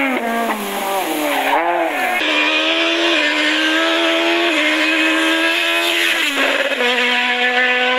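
Rally cars' engines at high revs. First a car pulling away, its revs dipping and picking up again. Then a Citroën Xsara Kit Car's naturally aspirated four-cylinder running at nearly steady high revs as it approaches, dropping to a lower pitch about six seconds in as it passes close.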